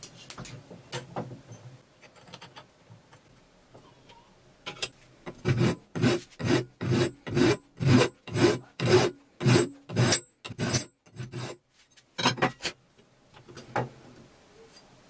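Hand file rasping back and forth across the edge of a metal square-tubing piece held in a bench vise. A few light strokes come first, then a run of about a dozen even strokes at about two a second, and two or three more near the end.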